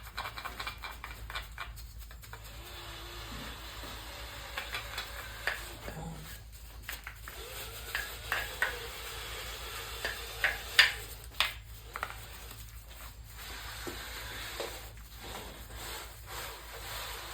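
Scrubbing and scraping on engine parts being cleaned, an irregular scratchy rubbing with a few sharp clicks and taps about halfway through.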